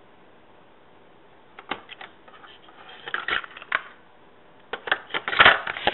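Faint steady hiss, then a run of irregular clicks and knocks that grow denser and louder toward the end.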